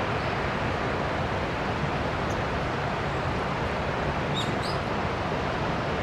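Senpiro waterfall's steady rushing noise, with two short high bird chirps about four and a half seconds in.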